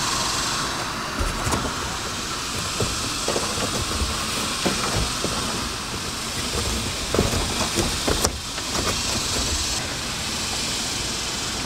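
Soft rustles and light taps of a dash cam cable being pushed by hand into the gap along the car's headliner. A steady high hiss with a low rumble runs under it and drops out briefly a little after eight seconds and again near ten seconds.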